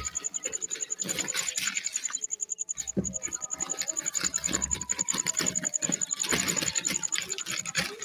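Grey francolin chicks pecking and scratching at dry dirt, a rapid, uneven run of small ticks and scrapes, over a steady high-pitched trill.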